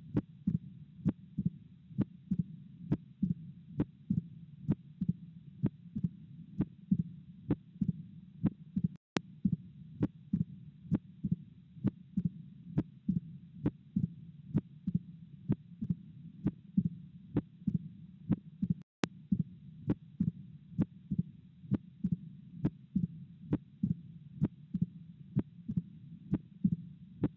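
Recorded heart sounds as heard through a stethoscope: a regular train of sharp heartbeats over a steady low rumble between them. The sound drops out for an instant twice.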